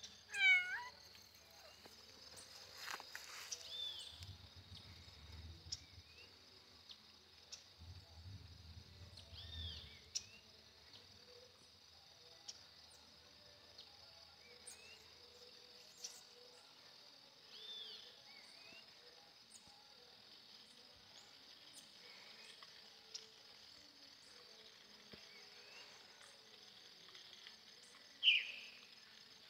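Outdoor ambience: a steady high chorus of crickets, with scattered bird chirps. A quick falling series of chirps comes just after the start, and a loud single chirp comes near the end.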